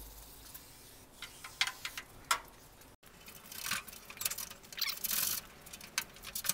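Chrome tailgate trim molding on a 1977 Chevrolet C10 being worked loose along its clips: a few light clicks, then bursts of scraping as the strip is pushed and slid over clips packed with built-up grime and pine needles.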